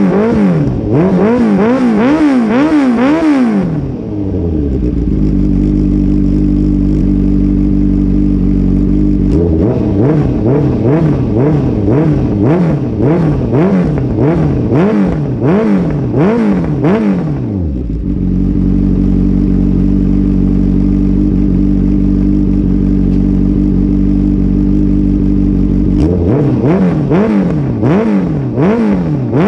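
Honda CB650F's inline-four engine, breathing through a Mivv MK3 full exhaust with no catalytic converter, revved in a string of quick throttle blips. It settles back to a steady idle about 4 s in and again about 18 s in, and the blipping resumes near the middle and near the end.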